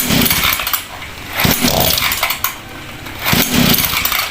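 49cc two-stroke stand-up scooter engine being pull-started three times, each pull a roughly one-second burst of cranking, the engine not catching because its ignition switch is off.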